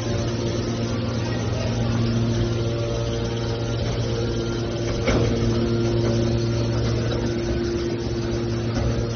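Scrap car baler's power unit running with a steady hum, with a single sharp knock about five seconds in.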